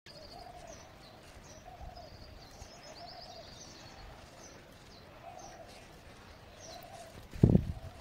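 Small birds chirping in short high notes over a dove cooing in a string of low repeated notes. A single loud bump cuts in about seven and a half seconds in.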